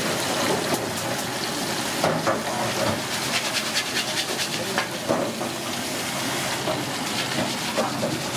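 Hot oil bubbling in a wok for deep-frying, a steady sizzling hiss, with a few sharp knocks and clinks of utensils and voices in the background.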